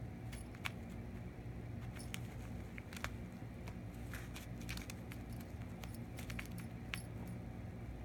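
Scattered light clicks and crinkles as a cat paws at a worm-on-a-stick wand toy inside a nylon play tunnel, busiest in the middle seconds, over a low steady hum.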